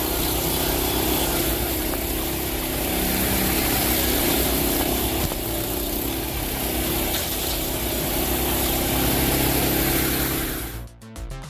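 An engine-driven machine running steadily with a low hum and a noisy upper wash, cut off abruptly just before the end.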